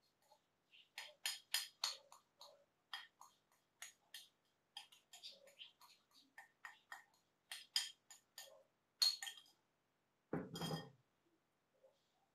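A spoon clinking and scraping against a ceramic bowl in quick, irregular taps while vegetable filling is scraped out onto dough, followed by one heavier knock about ten seconds in.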